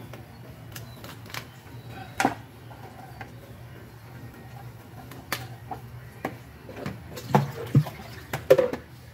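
Crisp clicks, cracks and knocks of a raw crab's shell being handled and its top shell pried off, tapping against a plastic board. The knocks are scattered, one about two seconds in and another about five seconds in, with a tighter cluster of the loudest near the end.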